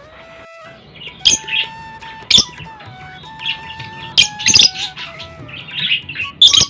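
Small pet parrots chirping: about five sharp, high, loud calls among softer chatter, over background music with held notes.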